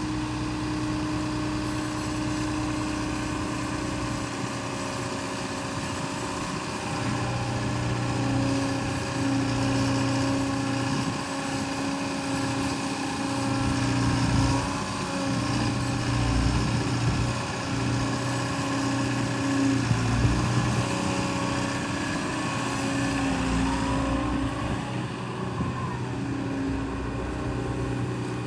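Liebherr R914 Compact excavator's diesel engine running steadily. Its note holds its pitch but swells and eases in loudness every few seconds.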